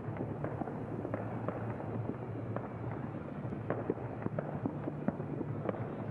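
Fireworks popping and crackling, many sharp cracks at irregular intervals, over a steady low hum.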